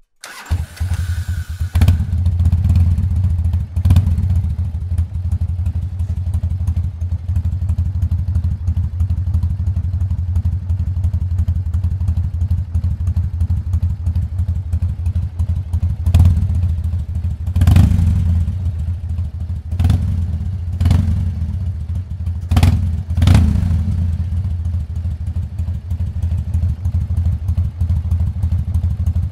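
Harley-Davidson V-twin motorcycle engine turned over on the electric starter with a brief whine, catching about two seconds in and settling into a steady, loping idle. It is a start after winter storage on a battery charger. The throttle is blipped once a few seconds after it catches, then several more times in quick succession later on, each blip a short surge in revs.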